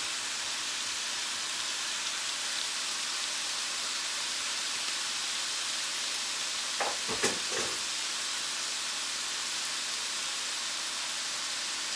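Ribeye steaks sizzling steadily on a hot electric indoor grill, an even frying hiss. A single short knock about seven seconds in.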